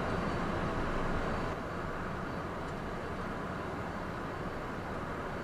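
Steady rush of airflow and jet engine noise in the cockpit of a Cessna Citation business jet climbing out just after takeoff; it steps a little quieter about one and a half seconds in.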